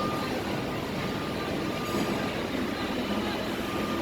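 Steady rumble of heavy-vehicle and site noise at a construction site, with a truck's reversing beep at the start and again near the end. No crash or impact is heard.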